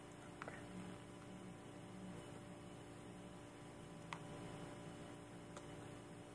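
Quiet room tone with a steady low electrical hum and a few faint ticks.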